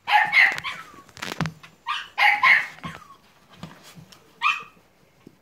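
Staffordshire terrier puppies yapping at play in short, high-pitched barks. There is a quick cluster at the start, another about two seconds in, and one more yip near the end, with a single sharp knock about a second in.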